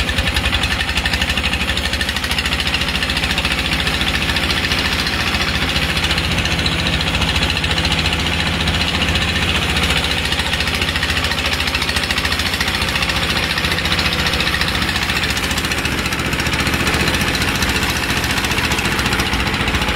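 A river boat's inboard engine running steadily under way, a fast, even knocking chug with water and wind hiss over it.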